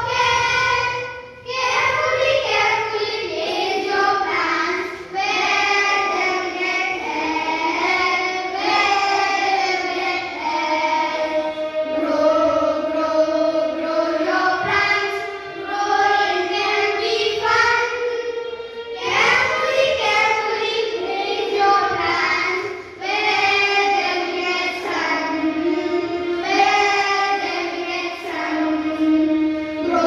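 A group of children singing a song together, in long phrases with short breaks between them.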